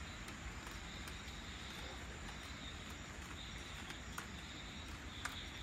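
Crickets and other night insects trilling in high, broken phrases over a steady hiss of evening rain, with a few faint ticks near the end.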